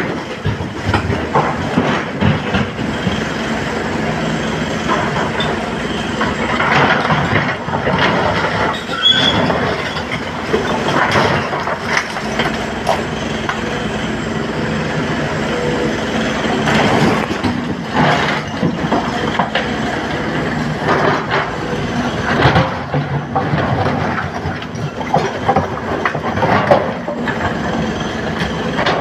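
SANY hydraulic excavator's diesel engine running steadily under load, with the steel bucket scraping and clattering through broken quarry stone and frequent knocks of rock on rock and metal.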